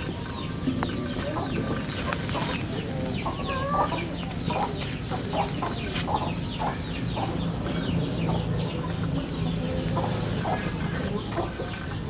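Chickens clucking and calling, with many short, high, falling calls repeating throughout over a low steady hum.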